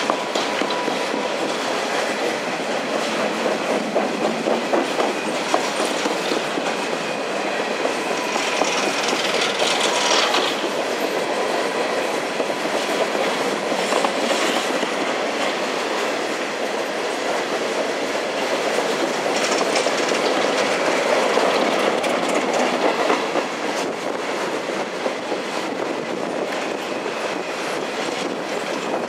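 Empty steel coal hopper cars rolling past downhill, their wheels clicking steadily over the rail joints with a continuous rattle. Brief high squeals from the wheels about nine and fourteen seconds in.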